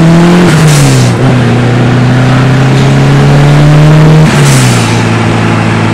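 Proton Satria's turbocharged Mivec engine, heard from inside the cabin, accelerating through the gears: its note climbs, drops at an upshift about half a second in, climbs steadily again, and drops at another upshift around four seconds in.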